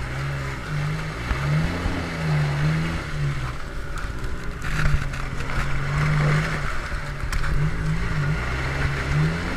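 Suzuki Samurai 4x4's engine revving up and down again and again as it churns through a muddy water hole, with the tyres splashing and sloshing through the mud.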